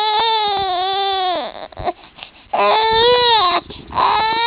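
A one-month-old baby crying hard: three long, high wails about a second each, separated by short pauses for breath.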